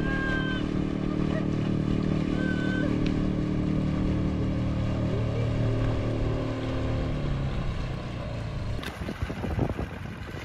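Small outboard motor on an inflatable dinghy running steadily at speed while towing a kayak. It fades out about seven seconds in, and near the end there is wind and water splashing.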